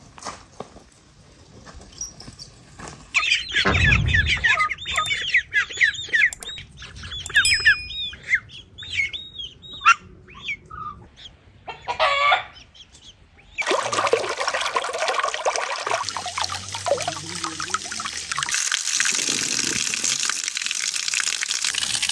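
Birds chirping with many short calls, a low thump about four seconds in and a short call from the yard poultry about twelve seconds in. From about fourteen seconds a stream of water pours steadily from the spout of a stone water spring and splashes, growing louder near the end.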